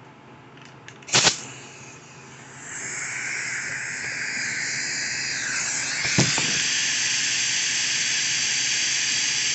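Small grinder running steadily at high speed, grinding clearance so that a throttle arm no longer touches the part beside it. A sharp click comes about a second in, and the grinding noise starts about two and a half seconds in.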